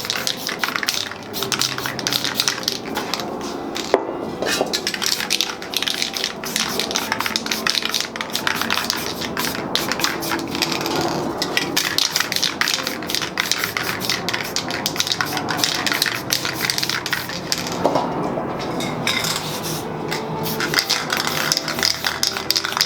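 Aerosol spray paint cans hissing in many short, quick bursts, mixed with sharp clicks and clatter of cans and tools.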